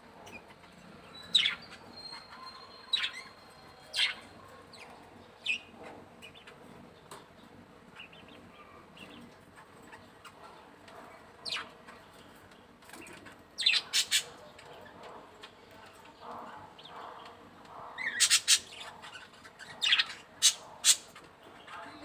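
Budgerigars chirping: short, sharp calls scattered one at a time, with a quick run of them about two-thirds through and several more near the end.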